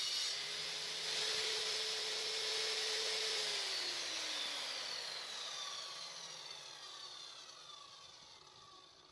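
Table saw running free, then switched off: its whine falls steadily in pitch and fades away as the blade spins down.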